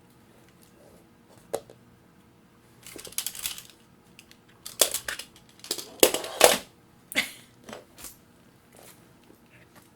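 A single sharp click, then irregular bursts of crinkling and rustling handling noise, loudest around the middle.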